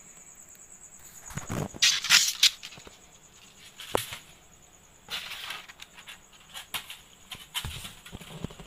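Cardboard box flaps being folded back and handled: a loud scraping rustle about a second and a half in, a sharp knock near four seconds, then more rustles and light taps.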